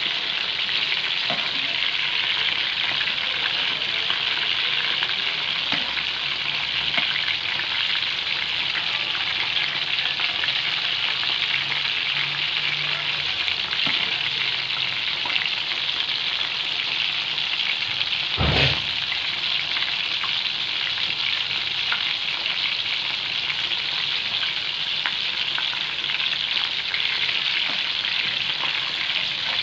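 Battered prawns deep-frying in a kadai of hot oil: a steady sizzle with faint crackles, while a slotted spoon turns them. One sharp knock about two-thirds of the way through.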